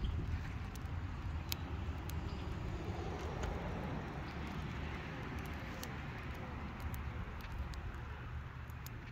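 A welcome mat burning on a charred tree stump: the flames give a steady rushing noise with a low, uneven rumble, dotted with scattered sharp crackles and pops.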